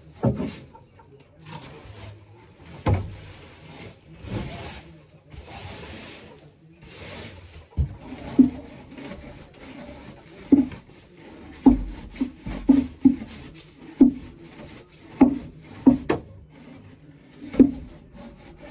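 Broom and scraper working over the wooden boards of a chicken coop: scratchy sweeping and scraping strokes, then about halfway through a run of sharp knocks on wood, about one a second.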